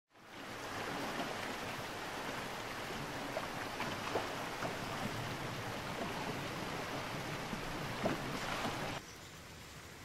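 River water rushing and splashing past a wooden boat's bow on a choppy, fast-flowing river: a steady wash of noise with small splashes, which cuts off suddenly near the end.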